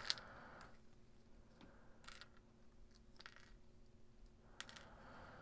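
Faint clicks and ticks of small electronic components being picked through and handled by hand on a cutting mat: one sharper click at the start, then a few soft ticks, over a faint steady hum.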